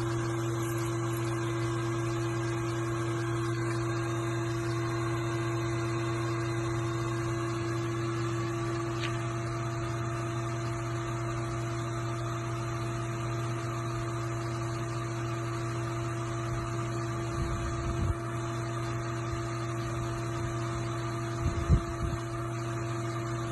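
Steady low mechanical hum, like a motor or fan running, with a couple of low thumps near the end.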